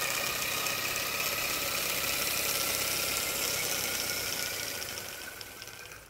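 Paper boxer-twin air engine running on air from a balloon: rapid, steady clattering of the paper pistons over a hiss of escaping air. It fades away over the last second and a half.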